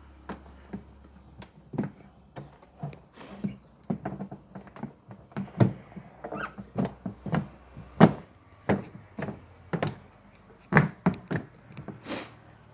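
Irregular knocks and clunks of washing machine parts being handled and fitted together during reassembly, a couple of dozen sharp strikes, the loudest about eight and eleven seconds in.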